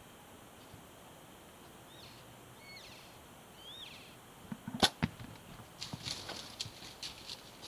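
A few faint high chirping calls, then a sharp snap of a bow shot about five seconds in, followed by a scattered run of knocks and crackles as a bull elk's hooves go through brush.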